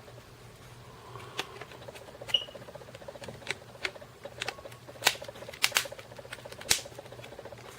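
Irregular light clicks and taps from a small plastic handheld media player being handled, about a dozen in all, with a faint steady hum underneath and a brief high blip about two and a half seconds in.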